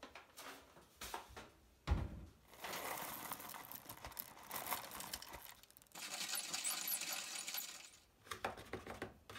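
Whole coffee beans poured from a paper bag into a cast-iron hand-crank coffee mill, rattling onto the metal hopper. Then the crank is turned and the beans crunch as they are ground. A single knock comes about two seconds in.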